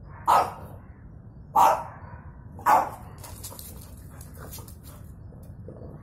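French bulldog barking three short, sharp times, about a second apart, in the first three seconds.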